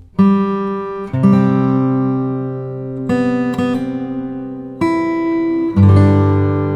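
Background music: chords strummed on a guitar, a new chord every second or two, each left to ring.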